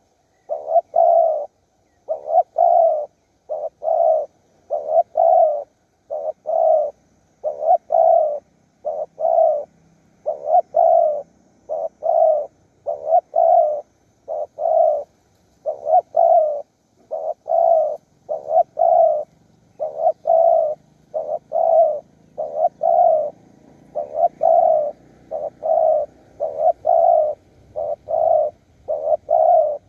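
Spotted dove cooing over and over: short groups of low coos repeated with brief gaps between phrases.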